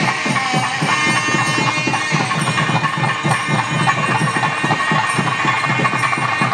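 Music with fast, driving drumming, several strokes a second, and held high-pitched tones over it.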